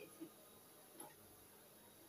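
Near silence: faint room tone with one soft click about a second in.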